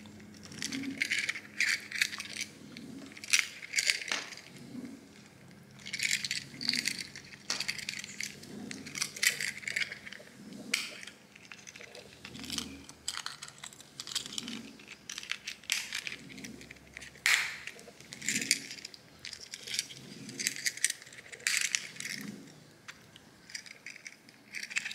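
Small plastic autogate remote control handled and pressed back together: irregular clicks, taps and rattles of the plastic casing, with light metallic clinks from its key ring.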